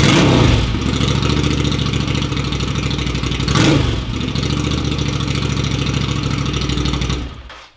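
Ducati Scrambler Cafe Racer's air-cooled L-twin idling loudly through a short aftermarket shorty exhaust fitted with a baffle insert. It is blipped twice, once at the start and again about halfway through, and is shut off just before the end.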